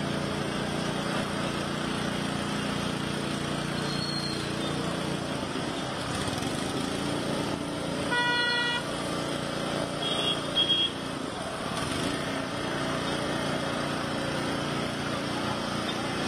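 Traffic moving through a flooded street: a steady wash of water and engine noise. A vehicle horn honks once about 8 seconds in, and two short, higher beeps of a horn follow a couple of seconds later, the loudest sounds here.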